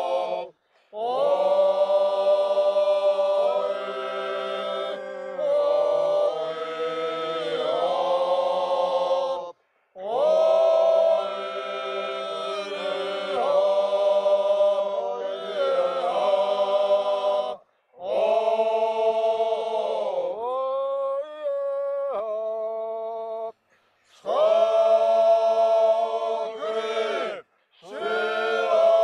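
Men's ensemble singing a Georgian folk song unaccompanied, several voices in harmony. They sing in phrases several seconds long, with brief breaks between them.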